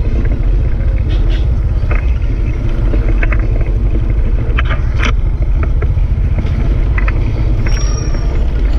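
Steady low rumble of a small motorcycle engine running at low speed close by, with scattered clicks and rattles.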